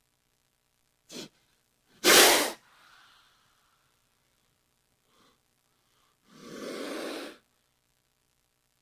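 Snake hissing in separate breathy bursts: a brief one, a loud sharp one about two seconds in, and a longer hiss of about a second near the end.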